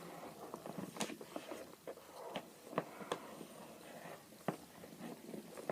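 Pens scribbling on paper: faint, irregular scratchy strokes with a few sharper taps.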